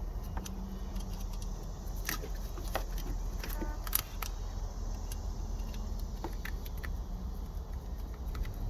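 Light metallic clicks and taps of an Allen key turning the small bolt that holds a truck's clutch switch, scattered and irregular, with two sharper clicks about 2 and 4 seconds in, over a steady low hum.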